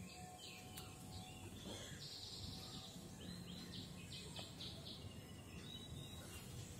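Faint runs of short, high chirps, about five a second, from a small calling animal: one run at the start and another a little past the middle, over a low steady hum.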